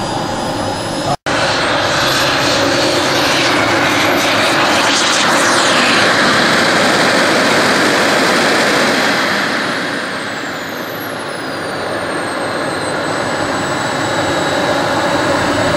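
Twin model jet turbines of a scale SR-71 Blackbird RC model running at high power through takeoff and climb: a steady jet roar with a high turbine whine, broken by a momentary gap about a second in. From about nine seconds the whine slides down in pitch and the roar eases as the model flies away, then swells again near the end.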